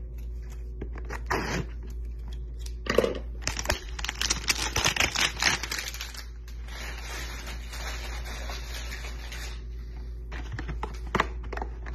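Cardboard hanger box of Donruss Optic football cards being handled and torn open. Dense crackling and tearing starts about three seconds in, then gives way to a steadier rustling that stops shortly before the end.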